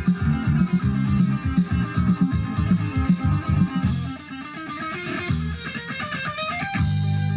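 Guitar-led rock music played through a Yamaha CA-810 stereo amplifier and Klipsch Chorus II loudspeakers, heard in the room. A driving rhythm gives way to a lighter passage about four seconds in, and a held low chord comes in near the end.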